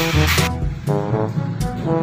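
Background music with a beat and a bass line. A high hiss cuts off about half a second in.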